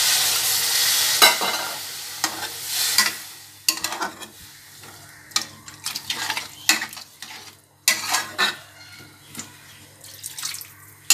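Water poured into a hot kadai of frying potatoes, onions, tomatoes and spices hisses and sizzles, strongest at first and dying away over about three seconds. Then a metal spatula stirs the gravy, scraping and clinking against the pan.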